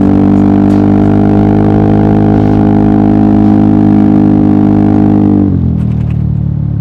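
Yamaha XMAX scooter engine running at a steady, even pitch under throttle. About five and a half seconds in, the pitch drops away as the throttle is closed.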